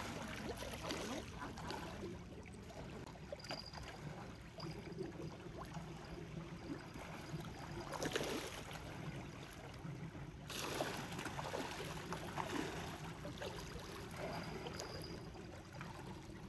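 Water lapping with a steady low rumble, and a couple of louder brief noises about halfway through.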